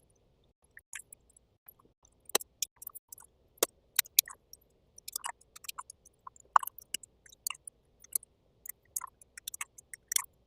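Irregular small clicks and clacks of a pistol and its magazine being handled, several close together at times, with no shots fired.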